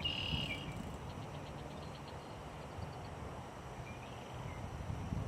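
Outdoor ambience: a short, high bird note right at the start, then a faint, rapid high chirping from a bird or insect, over a low, steady background noise.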